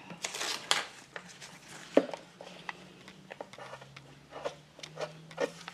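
A glue stick rubbing across a printed book page, with paper handling: a swishing rub near the start, then scattered light taps and clicks on the tabletop, the sharpest about two seconds in.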